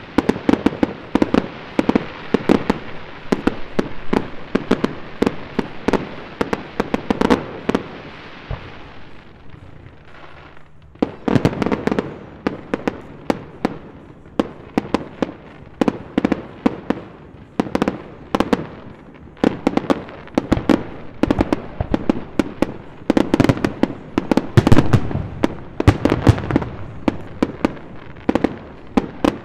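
Aerial fireworks display: rapid, dense bangs and crackles of shells bursting. The firing thins to a brief lull about a third of the way in, then resumes and builds to its densest and loudest in the second half.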